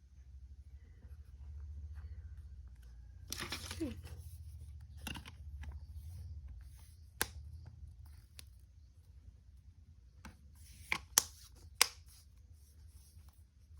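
Handling noises over a low steady hum: a brief rustle a little over three seconds in, then scattered sharp clicks and taps, the loudest being three clicks near the end.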